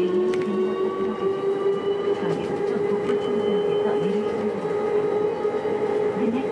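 Uijeongbu Light Rail's rubber-tyred VAL driverless train, heard from inside the front car, running with the whine of its electric traction motors rising slowly in pitch and levelling off as it gathers speed. A steady hum of running gear lies beneath, with a few light clicks.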